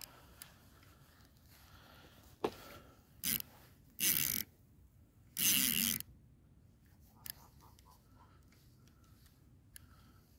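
Spinning reel's drag buzzing in four short bursts between about two and six seconds in, the last the longest, as a hooked catfish pulls line off against the bent ultralight rod.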